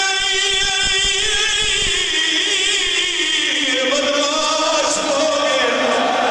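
A man's amplified voice chanting a verse in a drawn-out sung style, holding long notes and sliding in pitch: a zakir's mourning recitation at a majlis.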